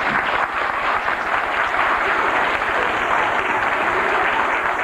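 An audience applauding, steady, continuous clapping from many hands.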